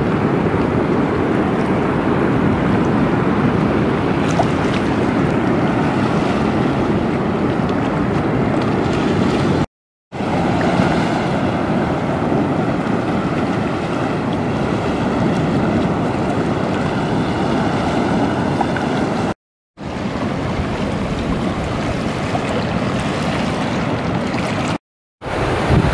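Steady wind rumbling on the camera microphone, mixed with the wash of surf. It is cut off by brief drop-outs to silence three times.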